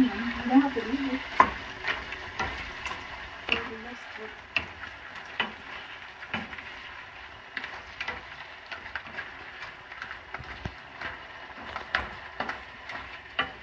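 Lobster pieces and vegetables sizzling as they stir-fry in a nonstick wok, with a wooden spatula scraping and clacking against the pan and shells at irregular moments.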